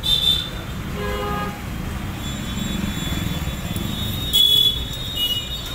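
Road traffic rumbling steadily, cut by about four short vehicle horn toots: one at the start, a lower-pitched one about a second in, a loud high one about four and a half seconds in and a brief one just after five seconds.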